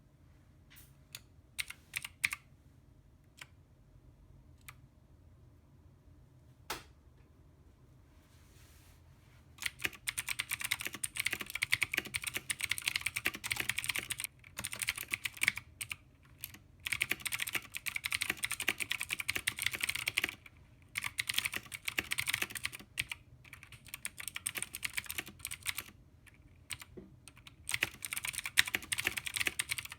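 Custom 60% mechanical keyboard being typed on: a few separate keystrokes and clacks at first, then fast continuous typing in bursts of several seconds with short pauses between.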